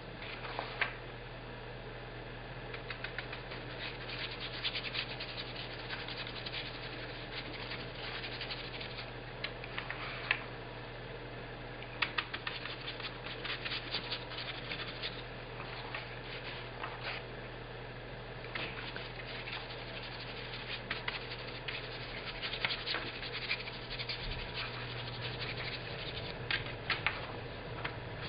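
Paintbrush scrubbing paint into wet fabric on a metal baking tray: irregular short scratchy strokes, over a steady low hum.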